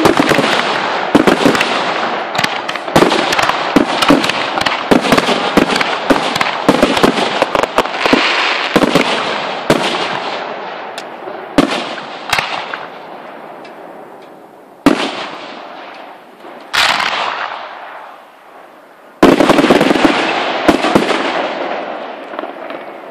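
Aerial fireworks shells bursting in a rapid barrage of bangs and crackling for about the first ten seconds. After that, single louder bursts come a second or two apart, each trailing off in crackle.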